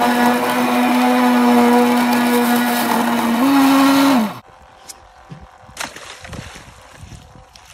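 Model RC trawler's motor whining loudly at a steady pitch, heard up close from on board; the whine steps up in pitch about three and a half seconds in, then slides down and stops about a second later.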